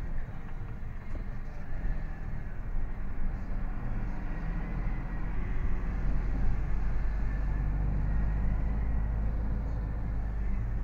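Lorry engine and road noise heard from inside the cab while driving: a steady low rumble that grows stronger in the second half.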